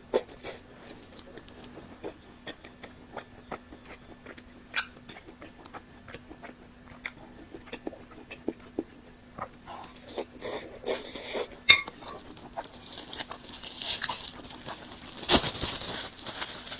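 Close-up eating sounds: wet mouth clicks and chewing, turning about ten seconds in to louder, denser crunching bites.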